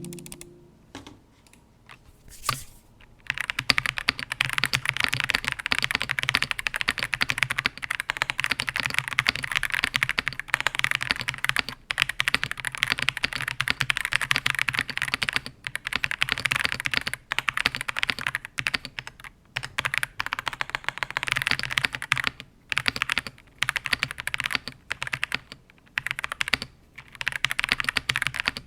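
Typing on an Ajazz AK820 Pro mechanical keyboard fitted with KTT Kang White linear switches and Fishing Cherry-profile keycaps: fast, continuous keystroke clicks with short pauses, starting about three seconds in after a near-quiet start.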